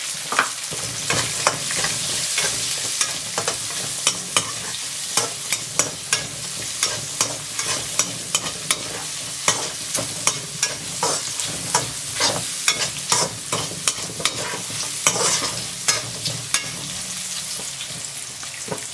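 Shallots sizzling in hot coconut oil in a metal kadai, stirred with a perforated metal ladle that scrapes and clinks against the pan several times a second. The clinking stops shortly before the end, leaving the steady sizzle.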